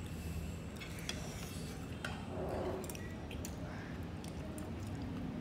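Metal spoons clinking and scraping against ceramic bowls and a plate as people eat, in scattered short clicks over a steady low background hum.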